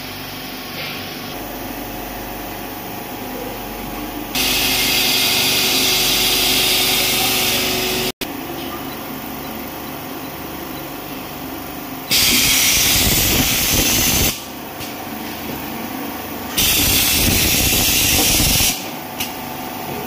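Rotary double-head honey spoon filling and sealing machine running with a steady mechanical hum. Loud hissing switches on and cuts off sharply three times, about four, twelve and sixteen and a half seconds in, each time lasting two to four seconds.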